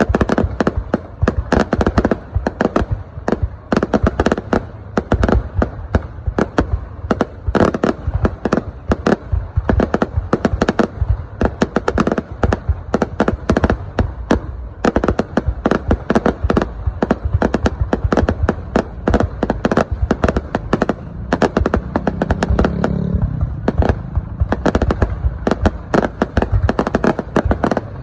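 Fireworks going off in a dense, continuous barrage of bangs and crackles, many reports a second without a break.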